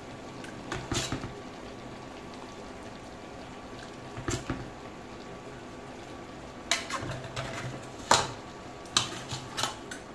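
Crab and coconut-milk sauce simmering in an aluminium pot, with a steady bubbling, while a spatula stirs through the crabs and scrapes and knocks against the pot several times. The loudest knock comes about eight seconds in.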